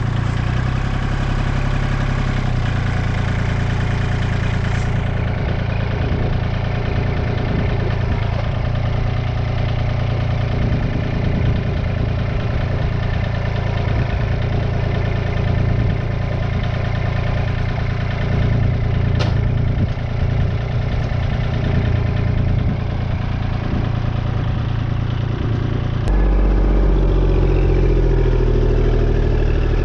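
Kubota L2501 tractor's three-cylinder diesel engine running steadily while working the front loader to lift and carry a square hay bale. About 26 seconds in, the engine grows louder with a deeper rumble.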